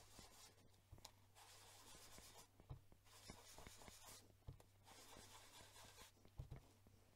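Faint scratchy swishing of a small craft sponge rubbed in circles over heat-embossed cardstock, in uneven strokes with short pauses, while ink is worked onto the card.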